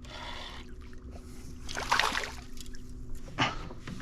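Water splashing near a fishing boat, loudest about two seconds in, over a steady low hum.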